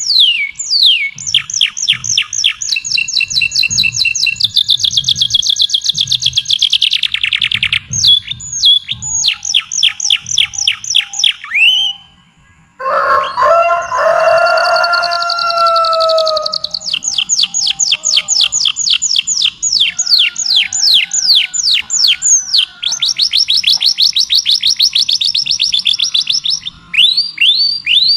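A songbird singing fast, loud trills of repeated downward-sweeping whistled notes, several a second. About halfway through the song breaks off briefly. A lower call with several layered tones follows for a few seconds, then the rapid trilling resumes.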